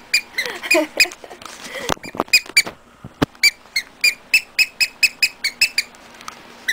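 Green frog rubber squeaky toy squeezed over and over in short squeaks. There are a few early on, then a pause, then a fast run of about three to four squeaks a second. Two sharp knocks come around two and three seconds in.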